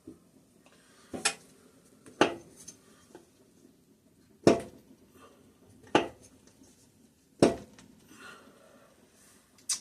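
Six sharp metal clanks about a second or so apart: a piston and rod being knocked out of a Kohler opposed-twin engine, its rings catching on the ridge at the top of the cylinder.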